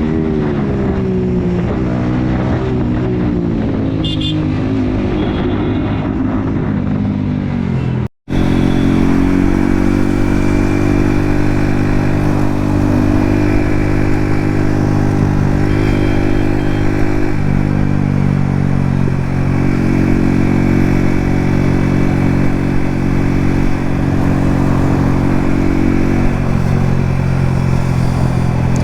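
Yamaha MT-15's 155 cc single-cylinder engine with an Akrapovic aftermarket exhaust, heard from the bike while riding: for the first several seconds the pitch rises and falls as the revs change, then after a brief break in the sound about eight seconds in it holds steady at cruising revs.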